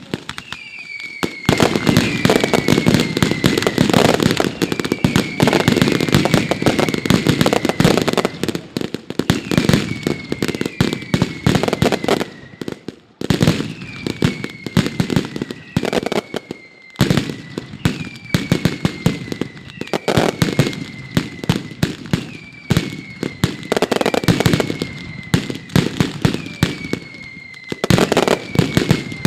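Mascletà firecrackers going off in a dense, rapid barrage of sharp bangs, thinning briefly about 13 s in and again near 17 s. Short descending whistles sound over the bangs every couple of seconds.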